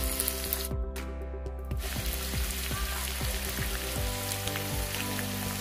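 Cubed potatoes frying in hot oil in a kadai, a steady sizzle that briefly drops out about a second in.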